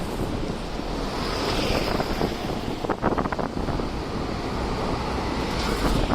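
Strong wind buffeting the microphone with a heavy low rumble, over street traffic noise, with a short run of knocks about three seconds in.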